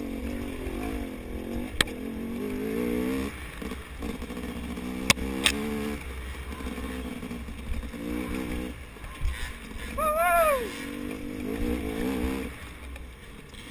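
KTM 250 XC two-stroke dirt bike engine revving up and down through the throttle changes of a tight woods trail. Three sharp clacks sound, about two seconds in and twice more about five seconds in.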